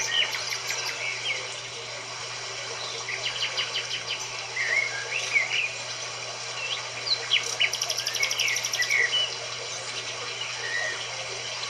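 Several songbirds chirping and trilling over a steady hiss, with a fast, high, ticking trill about eight seconds in. A steady low hum runs underneath.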